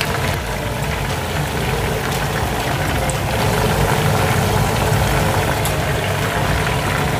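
Chicken pieces deep-frying in a pot of hot oil, sizzling and bubbling steadily; this is the second fry, meant to make the chicken stay crispy.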